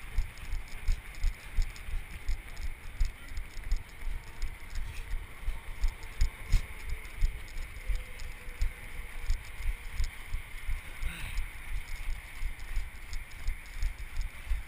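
Running footfalls on a snowy trail, picked up through a runner-worn action camera as a steady beat of low thumps about three a second, the pace of a runner's stride.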